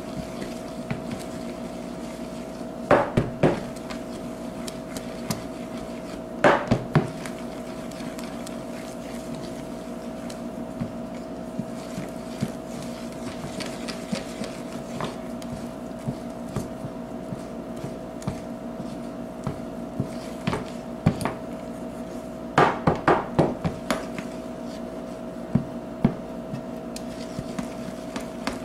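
Wooden spoon stirring thick melted marshmallow in a plastic bowl, with soft scraping and sharp knocks of the spoon against the bowl. The knocks come a few at a time early on and in a quick run near the end, over a steady hum.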